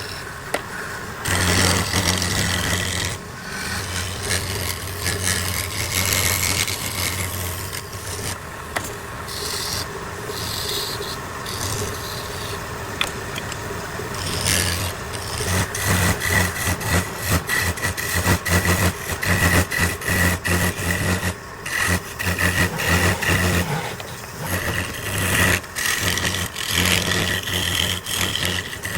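Electric wood lathe running with a steady motor hum, while something scrapes and rubs against the spinning wooden workpiece; the rubbing comes in short, irregular strokes, choppier in the second half.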